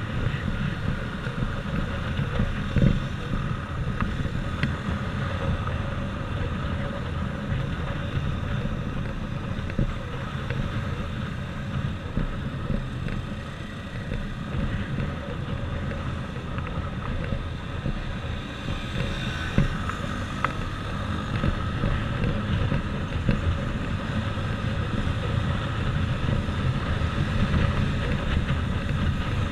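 Motorcycle engine running steadily at cruising speed, heard from the bike itself, with wind noise on the microphone.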